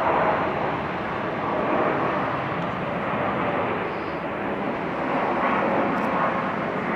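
Twin jet engines of a Boeing 787-8 at takeoff thrust as it lifts off and climbs: a steady, loud rushing jet noise with faint steady whining tones in it.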